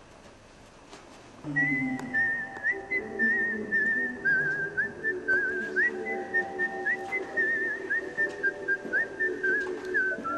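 A whistled melody over sustained instrumental backing begins about a second and a half in, after a quiet start, the whistle line wavering and sliding between notes.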